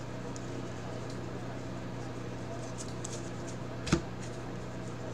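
Steady low electrical hum with faint sliding and rustling of trading cards being flipped through by hand, and one sharp click about four seconds in.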